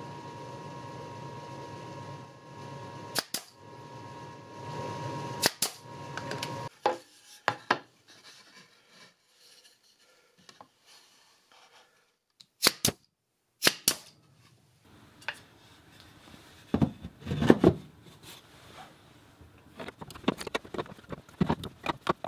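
Sharp wooden knocks and clicks as plywood parts of a screwdriver holder are handled and fitted together, over a steady hum that stops abruptly about seven seconds in. Near the end, a quick run of light clicks and rattles as screwdrivers are dropped into the holder's holes.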